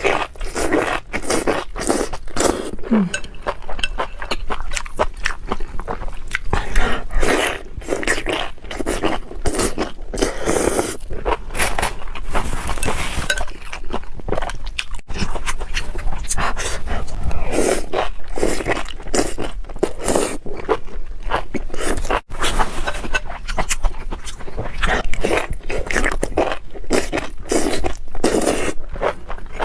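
Close-miked mouth sounds of someone chewing spicy enoki mushrooms, a dense, irregular stream of wet, crackly bites and chews without a break.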